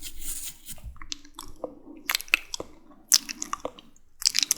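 Close-miked wet, sticky mouth sounds: clicks and smacks of lips, tongue and saliva in irregular clusters, with a soft breath at the start.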